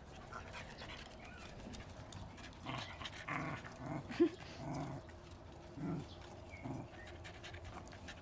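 Dogs play-fighting: short low play growls and grunts with panting, and one short yelp about four seconds in.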